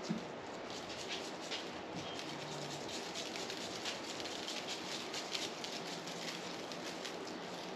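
Dry barbecue rub shaken from a shaker bottle, the granules pattering onto raw pork ribs in a run of quick shakes.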